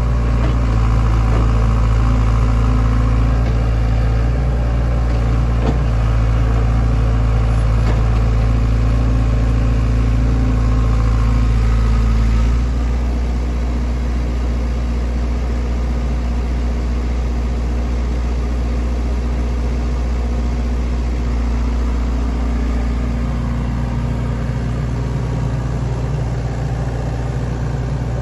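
Sany SY75C mini excavator's diesel engine running steadily as the machine works, stepping down to a quieter, lower-energy running about twelve seconds in.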